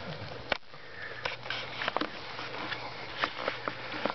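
Pug puppies snuffling and sniffing, short irregular snorts and little clicks as they nuzzle against their mother.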